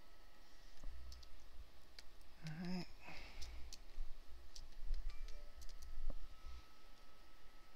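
Scattered computer mouse clicks, the kind made placing the points of a polygonal lasso selection, with a short wordless vocal sound about two and a half seconds in.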